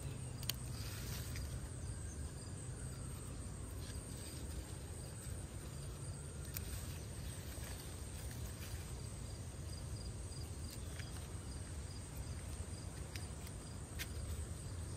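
Hand pruning shears snipping yardlong bean stems off the vine: a few short, sharp clicks spread through, over a steady low outdoor background with insects chirping.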